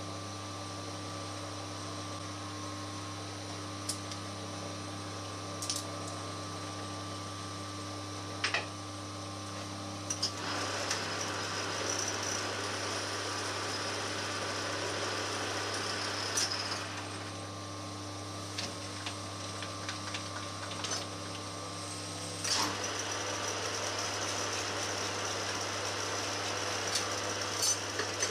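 Small metal lathe running steadily with a drill in the tailstock chuck cutting into the spinning part. The cutting noise rises loud for several seconds about a third of the way in and again near the end, with a few sharp clicks in between.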